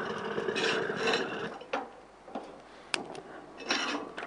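Cookware and utensils being handled at the stove: a steady hiss for about the first second and a half, then four or five separate sharp clicks and knocks.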